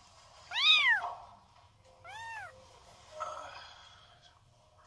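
A month-old Korean shorthair kitten mewing twice, thin high calls that rise and fall in pitch, the second softer, about a second and a half apart.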